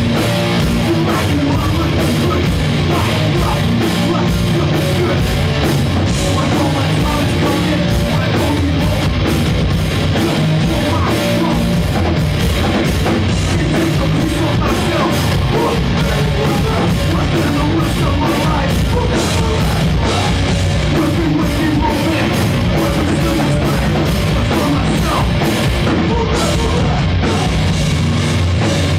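Hardcore punk band playing live at full volume: distorted guitars, bass and pounding drums, with a vocalist shouting into the microphone.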